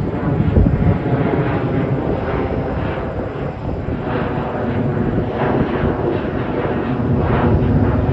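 Twin-engine jet airliner climbing out overhead after takeoff: a loud, steady rumble of jet engine noise.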